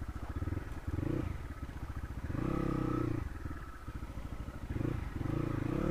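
Crossfire RM250 dirt bike's single-cylinder engine running at low speed, its revs rising and falling with the throttle several times: about a second in, from about two to three seconds in, and again near the end.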